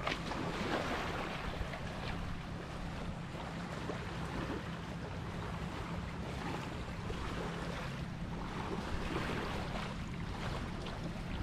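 Small waves lapping irregularly against a pebbly lake shore, with wind buffeting the microphone and a low steady hum underneath.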